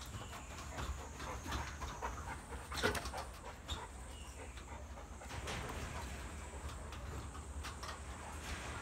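Two Presa Canario dogs moving about close by: scattered clicks and shuffles, with a louder knock about three seconds in.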